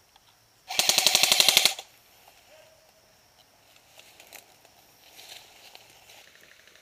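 Airsoft rifle firing one rapid full-auto burst about a second long, starting near the start. Fainter rapid airsoft fire is heard near the end.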